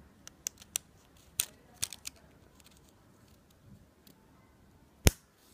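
Light plastic clicks and scrapes of a flat ribbon cable being worked into a small connector on an LCD circuit board, a handful of quick clicks in the first two seconds, then one sharp, much louder click near the end.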